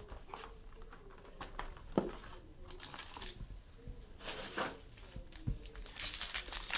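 Packaging crinkling and tearing as a sealed trading-card box is opened, in irregular handling bursts that get busier near the end.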